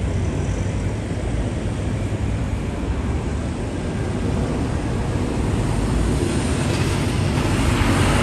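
City street traffic: a steady low rumble of passing vehicles that swells near the end as something louder approaches.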